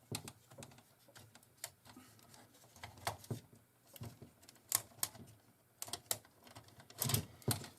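Irregular light clicks and taps of hand work on a jukebox power supply unit as its cover is being taken off, with a louder cluster of knocks near the end.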